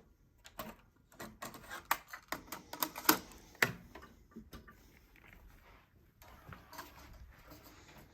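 A run of irregular small clicks and taps from a cassette deck's transport buttons and tape being handled. The clicks are densest in the first half and thin out later.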